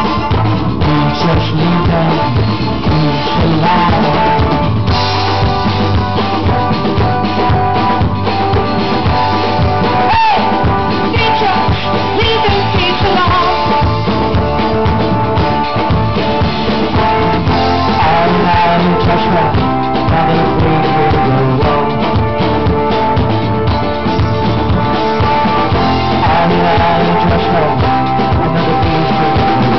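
Live band playing loud, with a drum kit keeping a steady beat under pitched melody lines.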